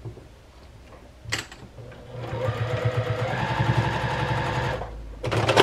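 Domestic sewing machine stitching a seam through layered cotton fabric and muslin: a click about a second in, then the machine runs for about three seconds at a fast, even stitch rate, building up and slowing to a stop, with a brief clatter near the end.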